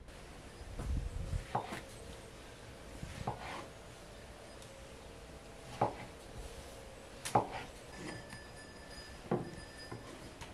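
Kitchen knife cutting soft peeled tomatoes on a thick wooden chopping board, the blade knocking the wood about five times, one every second or two.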